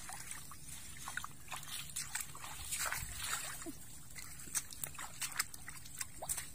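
Bare feet and hands sloshing through shallow muddy water, with a string of small, sharp splashes that come thickest in the second half.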